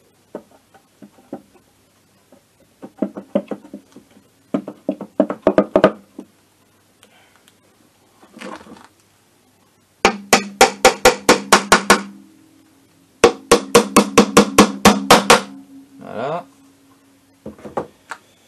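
A hammer tapping the kick-start cover onto a scooter engine's crankcase in two quick runs of about a dozen sharp strikes each, roughly five a second. Softer knocks and clatter come earlier as the cover is set in place by hand.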